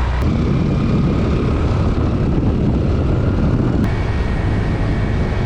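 Steady drone of a moving vehicle's engine mixed with wind rushing over the microphone. The vehicle is one its riders call an old rattletrap, here running smoothly.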